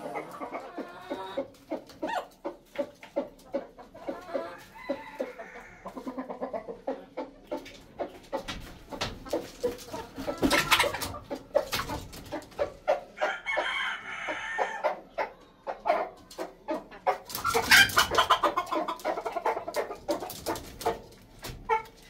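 Red junglefowl clucking in short, repeated notes, with a few louder, longer calls about halfway through and again about three-quarters of the way in.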